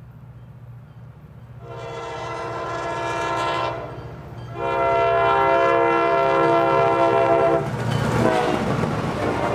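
Nathan K5LA five-chime air horn on an approaching EMD FP9A diesel locomotive, blowing two long blasts for the road crossing over the drone of its diesel engine. About eight seconds in, the locomotive passes close by, and the loud rush of engine and wheels takes over as the horn's pitch drops.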